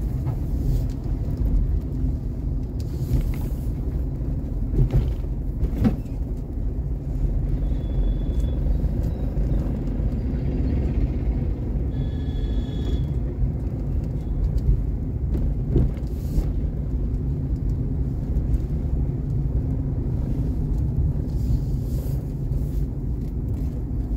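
Steady road and engine rumble of a vehicle driving along, with a few knocks and a couple of short high beeps near the middle.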